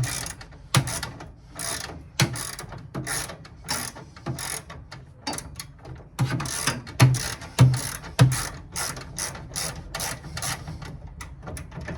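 Hand socket ratchet clicking in a string of short back-and-forth strokes, about one or two a second, as a radiator mounting bolt is loosened.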